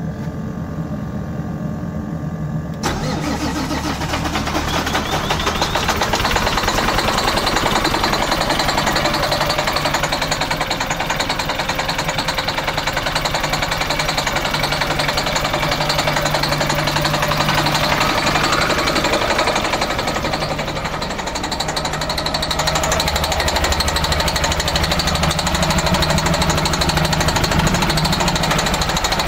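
Detroit Diesel Series 60 inline-six diesel in an MCI coach running rough with a knocking rattle, misfiring on only three of its six cylinders because of a fault in the external engine wiring harness. About three seconds in it suddenly becomes much louder and harsher.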